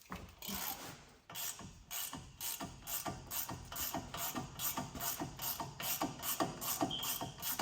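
Harbor Freight Icon G2 ratchet being worked back and forth, its pawl clicking in an even rhythm of about three to four clicks a second.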